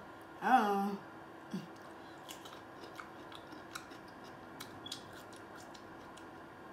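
A brief voiced sound from the eater about half a second in, then faint, scattered clicking of a person chewing a cucumber slice dipped in seafood-boil sauce.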